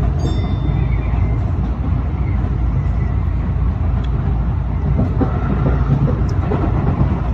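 Tobu 9000 series electric train running along the line: a steady low rumble of wheels and running gear. A brief high-pitched tone sounds just after the start.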